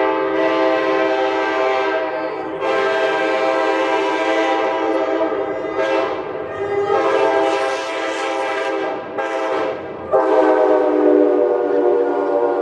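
Nathan Airchime K5LA five-chime locomotive air horn sounding its chord in long, loud held blasts. There are short dips along the way and a brief break about ten seconds in.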